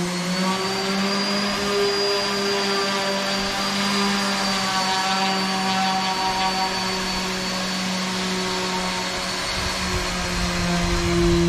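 Electric power sander running steadily with a constant hum and a thin high whine, grinding down thick fairing filler on a steel boat hull near the waterline.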